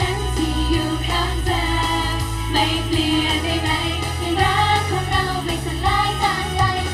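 Live idol-pop song through the concert loudspeakers: female group vocals singing over the backing music with a steady bass.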